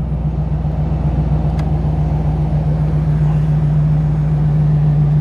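Dodge Durango's AC blower fan running, a steady hum with a rush of air that grows slightly louder as the fan is turned up.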